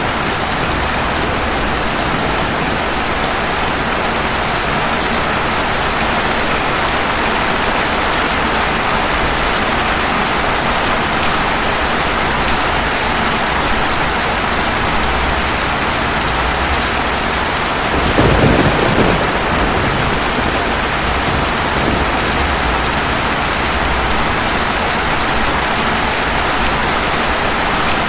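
Steady rain falling on pavement, with a brief burst of thunder about two-thirds of the way through.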